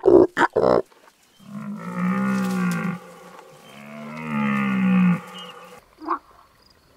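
Two long, drawn-out animal calls, one after the other, each about a second and a half. They come after a few short, loud sounds at the start, and a single short call follows near the end.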